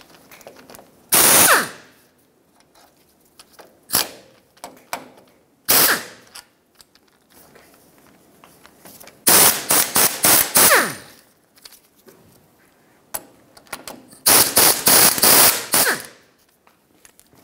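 Air-powered wrench on a 14 mm socket and extension, hammering in short rapid bursts about six times, with the longest near the middle and near the end. It is loosening and running out the bolts that hold the lower ball joint to the knuckle.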